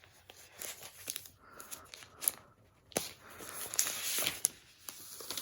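Packaging rustling and tearing as it is handled and pulled open, in irregular scrapes with a couple of sharp clicks.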